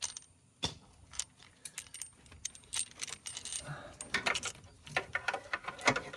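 Irregular metallic clicks and clinks of a ratchet with a swivel spark-plug socket, as it is worked onto a spark plug buried in a V8 engine bay. The sharpest clink comes near the end.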